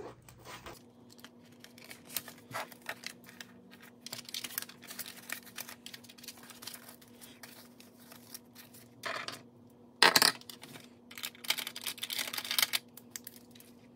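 Paper cash and budget envelopes being handled: rustling, crinkling and light taps, with louder bursts of rustling about ten seconds in and again about a second later.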